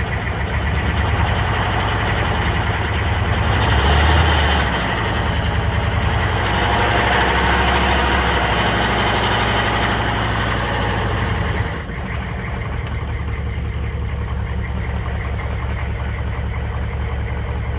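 A misfiring 6.5-litre V8 diesel engine being revved. It rises briefly about four seconds in, is held at higher revs for several seconds, then drops back to idle about twelve seconds in.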